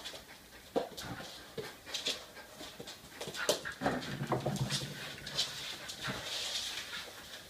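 Dog playing tug-of-war with a rope toy, making low growling and whining noises as it pulls. Its claws scrabble and click irregularly on a hardwood floor.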